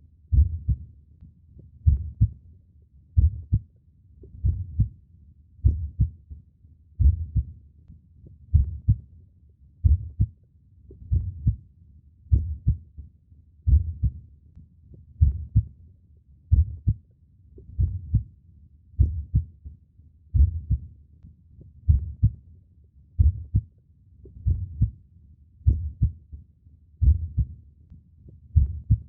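Human heartbeat, a slow, steady lub-dub at about 45 beats a minute, each beat a pair of low, dull thuds.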